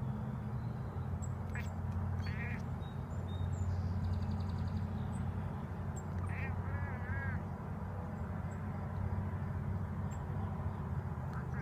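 A cat chattering at a bird: a few short bursts of high chirping calls, with a longer wavering trill about seven seconds in, over a steady low hum.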